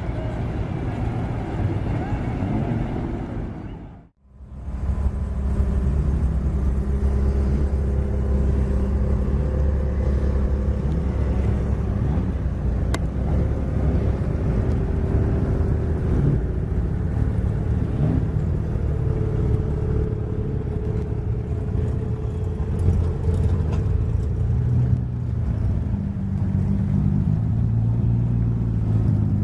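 A car engine running at low revs: a steady low hum that shifts slightly in pitch. The sound cuts out briefly about four seconds in, and the engine sound follows.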